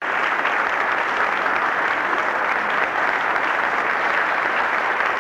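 Concert audience applauding steadily, greeting the performers as they take the stage.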